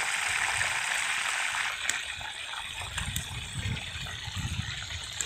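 River water rushing steadily, an even hiss that eases a little about two seconds in, with some low rumbles in the second half.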